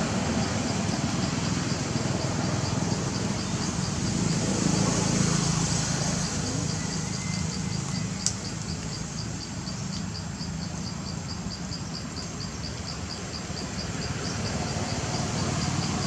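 An insect chirping in a steady, evenly spaced rhythm, like a cricket, over a constant low rumble, with one sharp click about eight seconds in.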